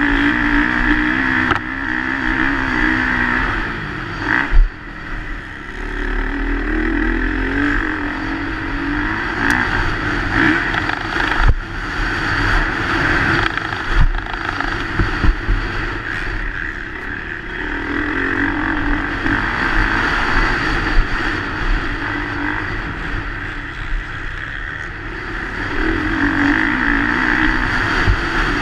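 Motocross bike engine heard from a camera mounted on the bike, revving up and falling off again and again as the rider accelerates and rolls off through the corners. A few sharp knocks come through from landings and bumps.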